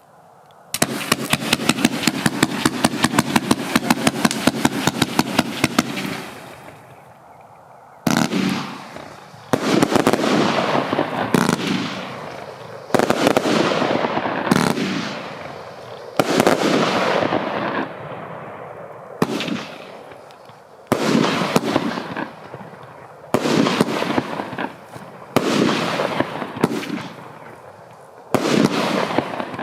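Consumer firework compound cake firing, the Riakeo 'Cyttorak' 142-shot F2 cake. Near the start comes a rapid, even run of quick shots lasting about five seconds. After that, single loud shots follow every one to three seconds, each trailing off in a fading crackle and hiss.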